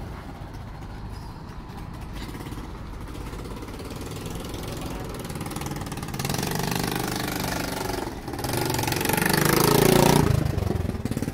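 A small engine running close by over a low background rumble. It grows louder from about halfway through, is loudest near the end, then drops away suddenly.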